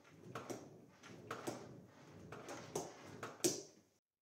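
Homemade wooden table saw fence sliding along the metal saw table, a scraping rub broken by several wooden knocks, the sharpest one near the end.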